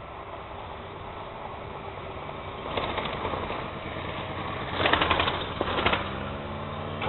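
Demolition excavator's diesel engine running steadily, then, from nearly three seconds in, the crunching and crackling of concrete being torn from the building by its demolition attachment, loudest about five to six seconds in.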